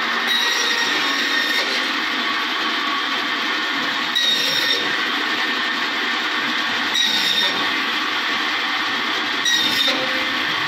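BIRO bandsaw running steadily while a wooden plank is cut, four short cuts about two and a half to three seconds apart, each adding a higher whine as the blade goes through the wood.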